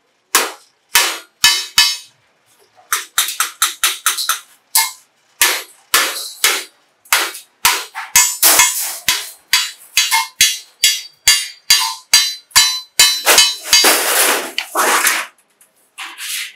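Hand hammer striking galvanized steel sheet at the joint between two curved pieces, irregular runs of sharp, ringing metallic strikes, two to three a second, with a short pause about two seconds in. Near the end the thin sheet rattles and flexes as it is lifted and bent.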